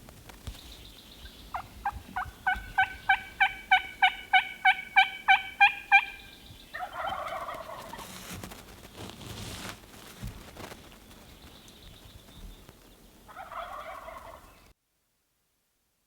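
A run of about sixteen turkey yelps, three or four a second, growing louder, followed by a tom turkey gobbling twice, several seconds apart. The sound cuts off suddenly near the end.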